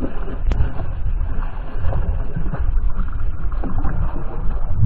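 Wind rumbling on the microphone and choppy lake water lapping against the boat's hull, with one short sharp click about half a second in.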